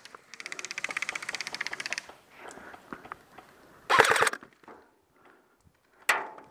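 Airsoft rifles firing on full auto: a rapid, even string of shots lasting about a second and a half, then a short, louder burst about four seconds in, and a single sharp crack near the end.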